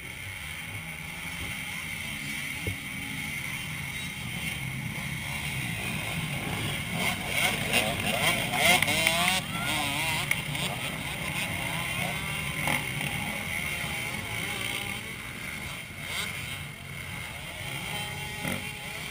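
Motocross motorcycle engines revving up and down as bikes ride past on a dirt track, the pitch rising and falling, loudest about halfway through.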